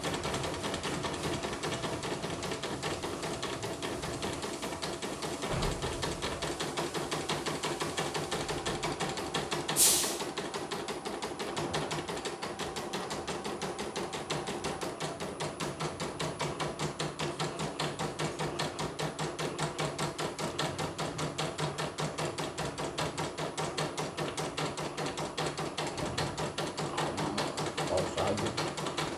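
Portable computerized embroidery machine stitching at a steady rapid pace, its needle mechanism clattering in an even rhythm as it runs a design in a test after repair. A brief loud hiss cuts in about ten seconds in.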